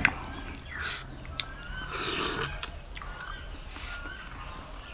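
Eating sounds from a man eating butter chicken by hand: a click of fingers against the metal plate at the start, then mouth sounds of slurping and chewing, loudest about two seconds in.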